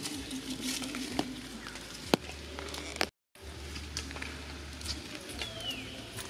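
Outdoor forest ambience with scattered light clicks and rustles. The sound cuts out for a moment about three seconds in, and a single short falling chirp comes near the end.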